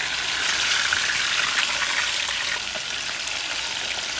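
Food sizzling and crackling in hot oil in a pan: a steady dense hiss, a little louder in the first couple of seconds.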